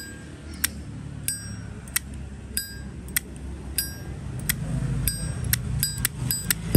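Zippo lighter lid flicked open and snapped shut over and over, a crisp clink every half second or so, quickening near the end. Many strokes ring briefly like a small bell: the clear 'bell tone' lid sound that collectors count as a good-sounding Zippo.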